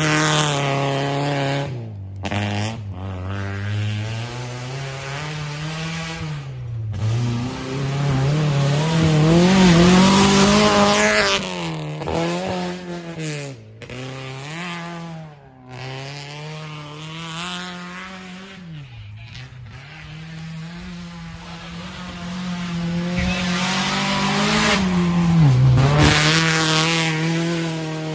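Fiat Uno's engine revving hard as it is driven around a dirt gymkhana course. Its pitch climbs and drops again and again, with several short dips. It grows loudest twice, about a third of the way in and again near the end, as the car comes closest.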